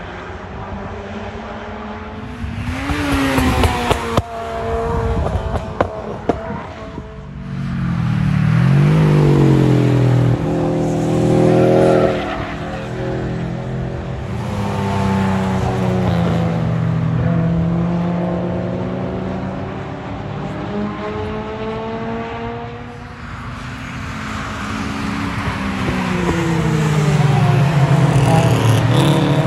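Several cars lapping a race circuit and passing one after another, their engines rising and falling in pitch as they accelerate, change gear and lift off. A few sharp clicks or pops come about four to seven seconds in.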